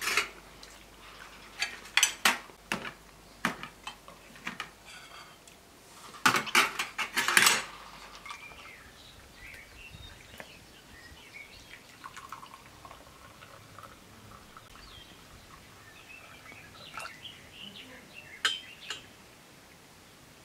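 Metal spoons and cutlery clinking and scraping against china plates and a metal serving tray during a meal, loudest in a dense run about six to seven seconds in. Afterwards only faint high chirps and a few light clinks remain.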